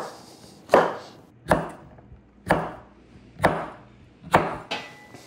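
Chef's knife slicing raw delicata squash into half-moon slices on a wooden cutting board: about six firm cuts, roughly one a second, each ending in a sharp knock of the blade on the board.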